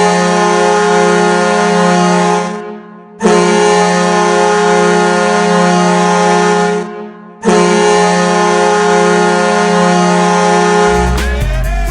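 Hockey arena goal horn sounding three long blasts of about three seconds each with short gaps between, a loud steady horn tone. Music with a heavy beat starts about eleven seconds in.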